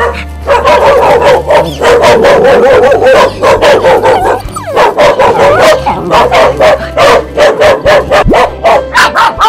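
A small dog whining and whimpering over and over in high, wavering cries, with a short break about halfway through.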